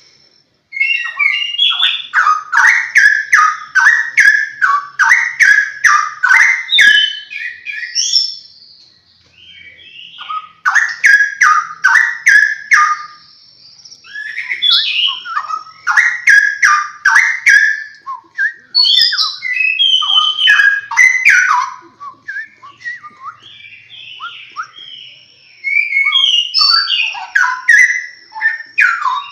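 Caged straw-headed bulbul (cucak rowo) singing loud, rapid, whistled song phrases in bursts of several seconds, separated by short pauses.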